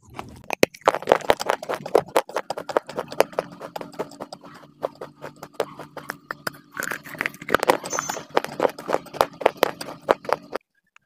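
Close-miked crunching and chewing of hard baked clay, a fast dense run of sharp crunches that stops abruptly shortly before the end.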